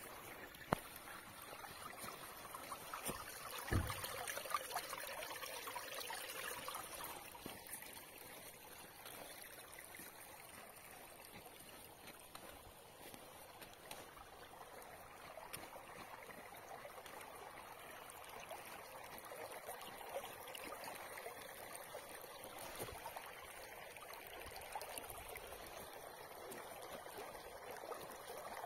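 Rain-swollen water running along a shallow concrete channel, trickling over stones in a steady wash. A sharp click comes under a second in and a low thump about four seconds in.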